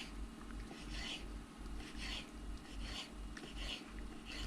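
Knife dicing soft roasted, skinned red peppers on a chopping board: a string of short scraping cuts, roughly one every half second to a second.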